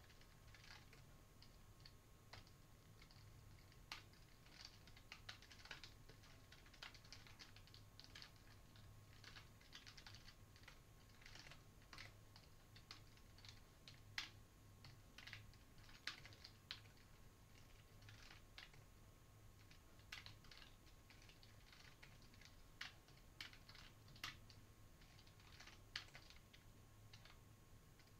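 Faint typing on a computer keyboard: irregular runs of quick key clicks with short pauses, over a low steady hum.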